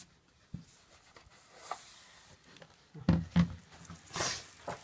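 Paper-mounting handling noises: two soft thumps about three seconds in, then a brief rustle of paper.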